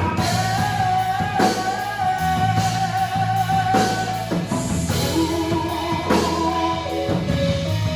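Live gospel band playing a worship song, with bass, guitar and drum kit, and a long held lead note over the first half followed by shorter melodic notes.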